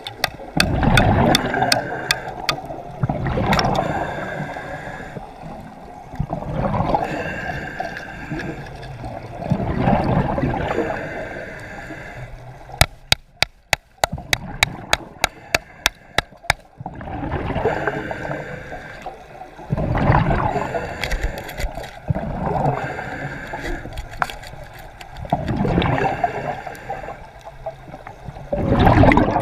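Water gurgling and rushing around a diver's underwater camera in surges every few seconds. About halfway through, the rushing drops away and a quick run of sharp clicks follows.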